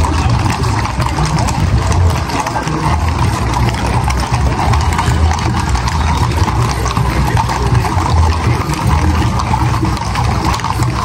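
Hooves of many horses clip-clopping as a cavalcade rides past, over a steady, dense background noise.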